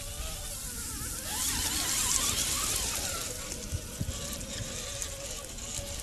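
Electric motor and drivetrain of an RC crawler whining, the pitch wavering up and down with the throttle. Underneath runs a hiss that swells between about one and three seconds in as the tyres push through wet grass and into shallow water.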